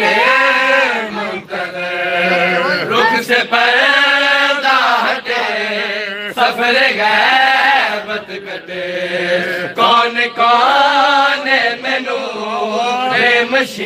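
Men chanting a devotional Urdu qasida (manqabat for Imam Mahdi) with a lead voice on a microphone, unaccompanied and held in long, wavering sung lines.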